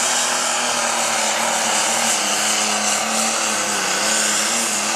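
Multi-turbocharged super stock pulling tractor engine running hard at high, steady revs, with its turbochargers screaming over the engine note.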